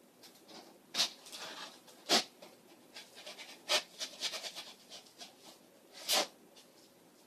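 Box cutter slicing through packing tape and cardboard on a shipping box: a series of short rasping cuts, the sharpest about a second, two seconds and six seconds in, with a quick run of strokes around four seconds in.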